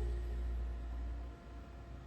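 The final held chord of a song dying away, its low bass note ringing on until about a second and a half in, then near quiet.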